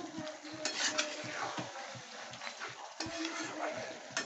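A cooking spoon stirring and scraping chicken bharta in a pan, with irregular light knocks of the spoon against the pan.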